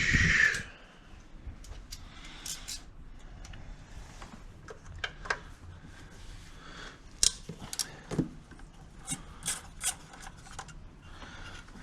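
Metal socket-set tools clinking and rubbing: sockets and extensions being handled and fitted to a ratchet, in irregular scattered clicks, with a louder rattling rustle right at the start.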